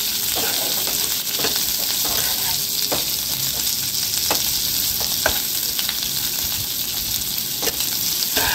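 Chopped onions sizzling in hot oil in a frying pan, frying toward light golden brown. A spatula scrapes and knocks against the pan about once a second as they are stirred, over a steady hiss.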